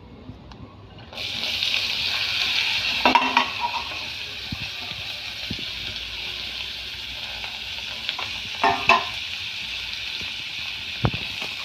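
Chopped onion, garlic and tomato hitting hot oil in a kadhai: a sudden loud sizzle about a second in that settles to steady frying, with a few knocks against the pan.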